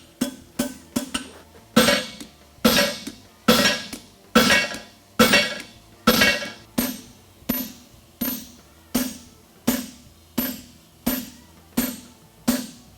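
Farrier's hammer striking hot 5/8-inch square steel bar on an anvil and tooling block, forging a tooled front horseshoe, with a metallic ring after each blow. A few quick light taps, then steady heavier blows about every 0.8 s that grow lighter in the second half.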